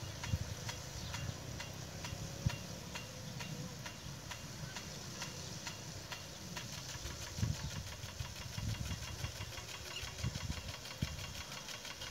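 Rain gun irrigation running: a steady mechanical ticking, about three times a second, over a low, uneven rumble.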